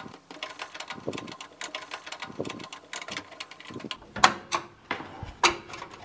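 Screwdriver turning a screw into the graphics card's sheet-metal bracket in a PC case: a run of small rapid clicks and scrapes, with two sharper clicks about four and five and a half seconds in.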